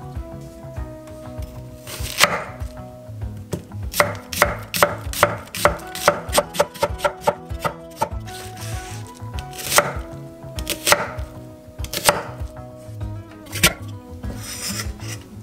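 Kitchen knife chopping an onion on a thick wooden end-grain cutting board: sharp knife strikes on the wood, starting about two seconds in, fastest in the middle at several a second, then more spaced out.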